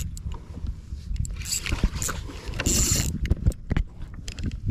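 Spinning reel whirring in short bursts, each about half a second long, while a hooked bonito is fought. A low rumble of wind and water runs underneath.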